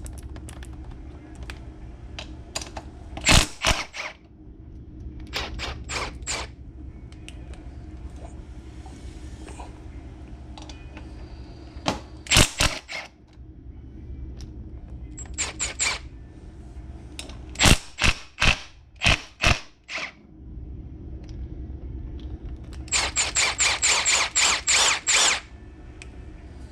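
Small Milwaukee cordless impact driver hammering in short bursts of rapid strikes as it loosens the ATV's rear sprocket bolts, over a steady low hum. The longest run of hammering comes near the end.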